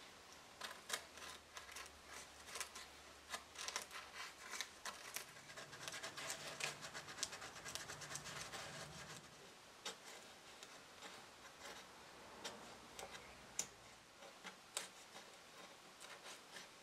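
Thin metal blade scraping and prying under brittle old paper glued to a wooden mirror frame: faint, irregular scratching with small clicks and crackles of the paper lifting, busiest in the middle.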